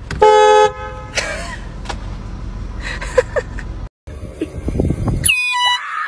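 A car horn blares in one short, loud blast about a quarter second in, sounded to startle a pedestrian standing in front of the car. After a cut, near the end, comes a high cry that falls sharply in pitch.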